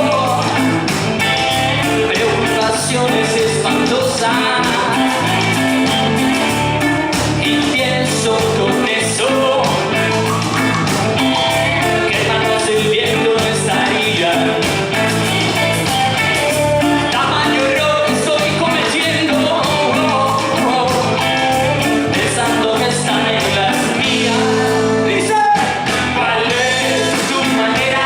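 Upbeat band song: singing over guitar, bass and a steady drum beat.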